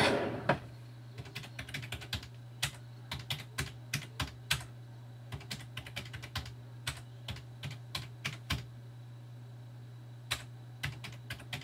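Typing on a computer keyboard: irregular runs of short key clicks with pauses between them. A steady low hum runs underneath.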